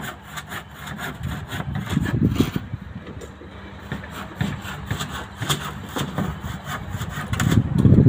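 Handling noise of a phone pressed against a dumpy level's eyepiece: repeated small scrapes, rubs and taps as it is lined up, over a steady low machine hum.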